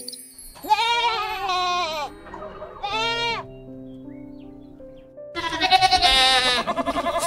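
Goats bleating three times: two wavering bleats, then a longer, louder quavering one near the end, over soft background music.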